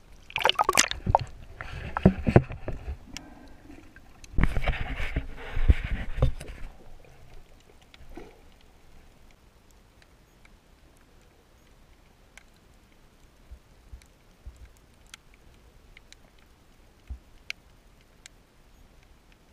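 Water splashing and sloshing around a camera held at the surface, for about the first six seconds. It then goes under, and the rest is quiet underwater sound with scattered faint clicks.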